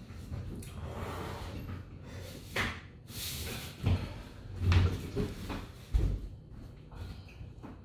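Knocks and thumps from a leather office chair as a man pushes himself up out of it by the armrests, the heaviest thump a little under five seconds in, then footsteps on a hardwood floor. Between them come hard, blowing breaths.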